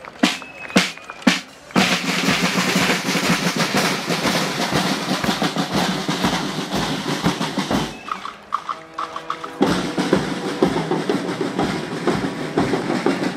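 Marching band snare and bass drums playing a parade cadence, with a few separate loud strokes at first and then rapid continuous drumming. About eight seconds in, the band's brass sound held notes for about a second and a half before the drums take over again.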